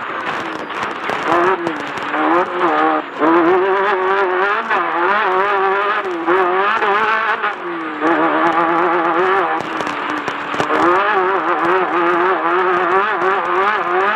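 Class 10 off-road race car's engine revving hard, its pitch wavering quickly up and down as the throttle is worked over rough terrain. The revs drop briefly about three seconds in and again around eight seconds. Clicks and knocks run through it.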